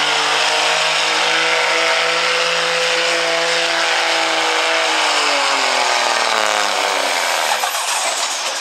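Diesel Dodge Ram pickup pulling a weight-transfer sled at full throttle, its engine running hard at high revs. About five seconds in the revs fall away as the truck comes to a stop at the end of its pull.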